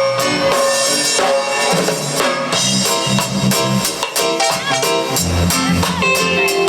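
Live band playing an instrumental with a steady drum beat and a moving bass line.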